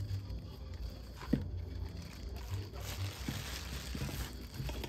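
Plastic packaging bag crinkling as gloved hands handle it, with a single light knock about a second in.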